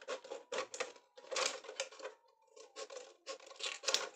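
Scissors snipping through the thin wall of a plastic drink bottle, cutting it into strips: a series of short, irregular snips with the plastic crackling, and a brief pause about halfway through.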